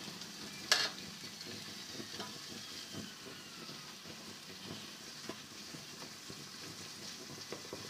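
Naan dough frying faintly in ghee in a covered-style cooking pot on a low flame, a soft steady sizzle with scattered light ticks and one sharp click about a second in.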